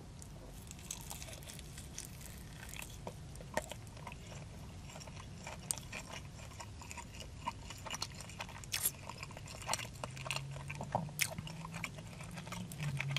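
A person chewing and biting a mouthful of buffalo chicken tender, faint wet clicks and smacks scattered through.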